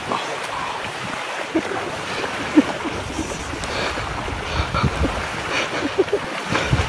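Small waves washing on a sandy beach, with wind buffeting the microphone; the low wind rumble is heavier for a few seconds in the middle.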